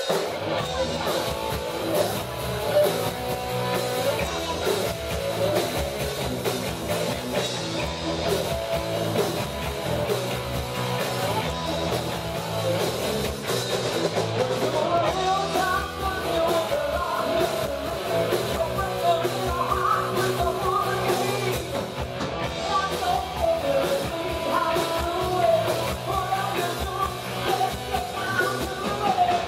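Live rock band playing with electric guitars, bass and drums. A woman's lead vocal comes in about halfway through.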